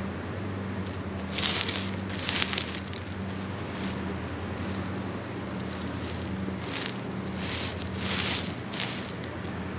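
Shingle pebbles crunching and rattling in several short, irregular bursts, the loudest about one and a half and two and a half seconds in and again near the end, over a steady low hum.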